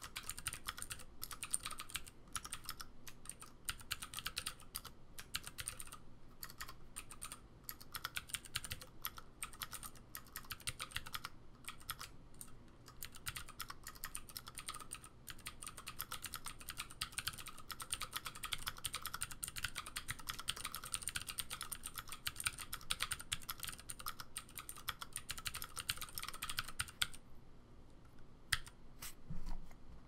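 Fast, continuous typing on an Ergodox Infinity split mechanical keyboard with vintage Cherry MX Blue switches, a dense run of sharp clicky keystrokes. About three seconds before the end the typing stops, leaving a few separate keystrokes.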